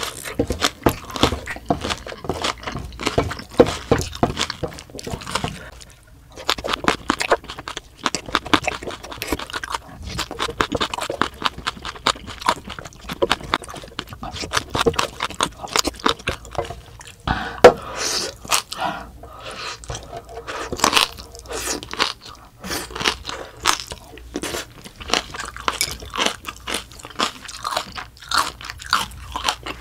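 Close-up chewing and crunching of spicy kimchi and green chilli pieces, with a plastic spoon scraping the plate.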